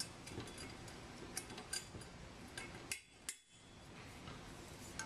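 Light metallic clicks and taps as a steel snap ring is worked by hand into the stainless-steel tube housing of an automatic sampler.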